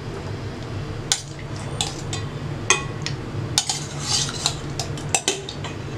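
Metal spoon clinking and scraping against steel cookware as gravy-coated chicken pieces are spooned onto rice: about seven sharp clinks, irregularly spaced, with a short scraping hiss a little after four seconds. A steady low hum runs underneath.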